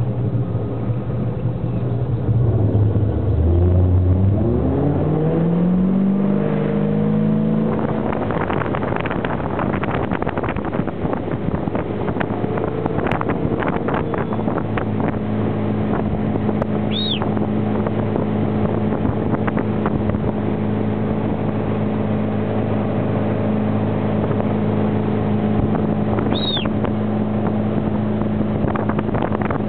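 Ski-towing motorboat engine pulling a slalom water-skier up from the water: it rises sharply in pitch and loudness from about four seconds in as the boat accelerates under load, then runs steadily at speed with the rush of spray and wake.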